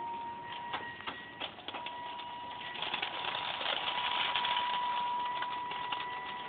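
A small motor running with a steady high whine, over scattered clicks and a hiss that grows louder about halfway through. The whine winds down at the very end.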